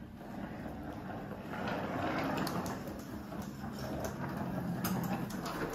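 Wheels of a child's trolley school bag rumbling as it is pulled across a tiled floor, with a few light clicks.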